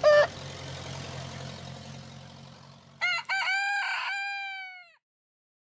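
A rooster crowing once, about three seconds in: a choppy start, then one long held note that bends down and fades at the end. Right at the start, a brief loud pitched note, then a low hum that fades away.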